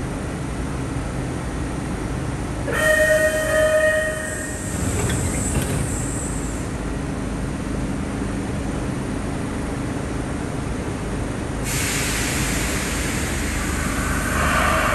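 MBTA Orange Line subway train pulling out of an underground station over a steady low rumble. A short horn blast in two pulses comes about three seconds in. A sudden hiss of air starts about twelve seconds in, and wheel squeal begins near the end.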